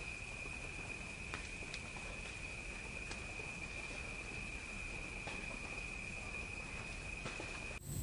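Insect ambience: a steady high-pitched trill over a faint hiss, with a few faint ticks, cutting off just before the end.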